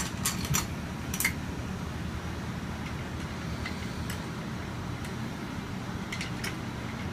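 A few light clicks and clinks of chair parts and hardware being handled during assembly, mostly in the first second or so and again near the end, over a low steady hum.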